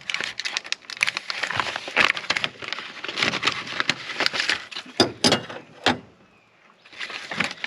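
Crackling, cracking and clicking of a cutter-bar splice kit being worked out of its plastic packaging, a quick run of sharp snaps that falls quiet briefly near the end.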